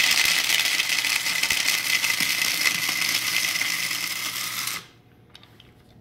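Electric blade coffee grinder running full of dry grain corn kernels, a loud grinding whir with a steady high whine as the kernels are broken into floury meal. The motor cuts off suddenly near the end, followed by a few faint clicks.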